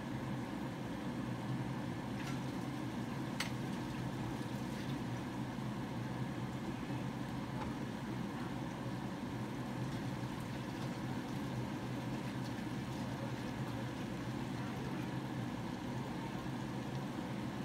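Kitchen range hood fan running with a steady hum, with a couple of faint clicks about two and three and a half seconds in.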